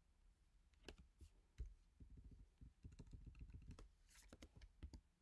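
Faint computer keyboard typing and clicking, scattered clicks with a quick run of keystrokes in the middle.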